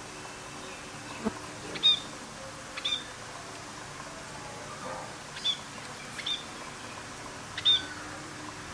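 A bird chirping: short high calls, one at a time, about five of them spaced a second or more apart.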